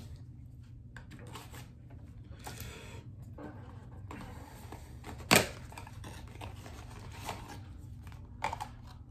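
A small cardboard box being handled and opened by hand: light scraping and rustling of cardboard and packaging, with one sharp click about five seconds in and a couple of small taps near the end. A steady low hum runs underneath.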